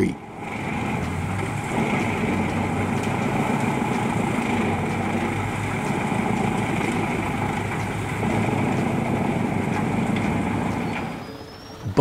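Jenz HEM 700 DL wood chipper running steadily, a dense machine noise with a constant high whine over it, fading in at the start and out near the end.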